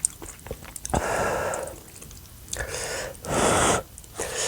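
Close-miked mouth sounds of a person eating spicy noodles: three breathy bursts of about half a second each between quieter stretches of chewing, with a sharp click about a second in.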